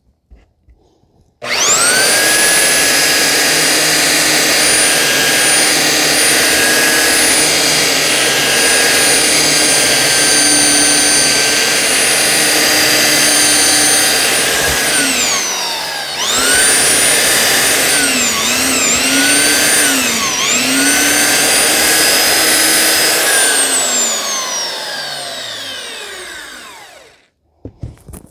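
Makita 9403 4x24-inch belt sander running under load, sanding an OSB sheet with an 80-grit belt: a loud, steady motor whine. It is switched off and winds down about halfway, starts up again, dips in pitch twice, then is switched off and winds down to a stop near the end.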